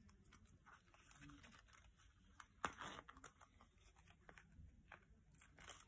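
Faint handling noise of a coated-canvas key pouch with a metal zipper turned over in the hands: light rustles and small clicks, with one sharper crackle about two and a half seconds in.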